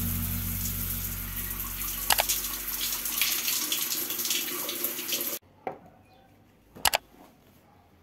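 Shower water running and spraying down onto a hand and tiled wall after the wall valve is opened, a steady rush that cuts off abruptly about five seconds in. Then a quiet room with two short knocks.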